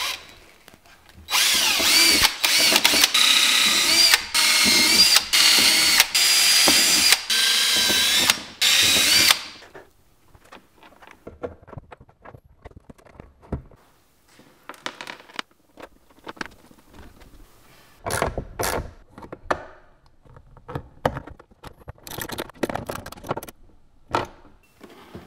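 Cordless drill run in several short stop-start bursts, boring holes into a hard plastic case, its motor whine rising and falling. After that, quieter small clicks and clatter as bolts and washers are handled and a small ratchet is worked.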